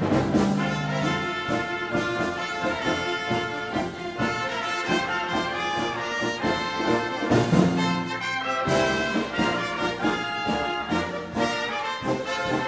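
Background music led by brass instruments, with a steady beat.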